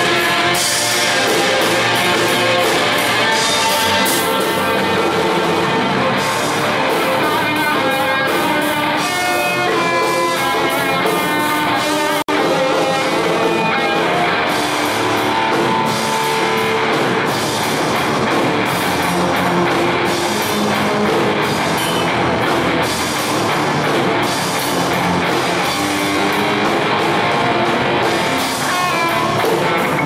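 Instrumental heavy-rock trio playing live: electric guitar carries the melody over electric bass and a drum kit, with a brief dropout in the sound about twelve seconds in.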